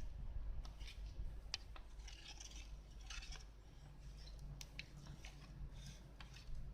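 Light scratching and small scattered clicks of hands and utensils preparing a cup of instant corn soup, over a low steady rumble.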